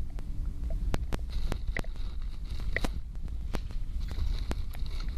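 Handling and moving-about noise: irregular clicks and knocks over a low rumble.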